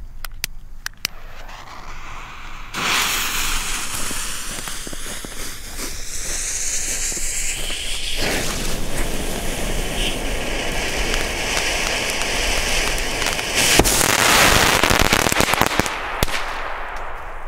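Firework fire pot (ground mine) going off: a continuous hissing and crackling of burning composition, swelling to a louder rush of sparks about 14 seconds in.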